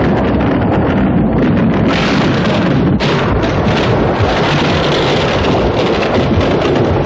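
Loud, steady rushing-wind sound effect on a cartoon soundtrack, with a sharp break about three seconds in.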